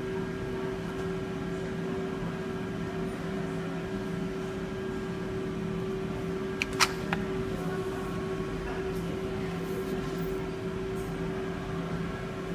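Steady mechanical hum with a constant low tone, and two sharp clicks close together about seven seconds in.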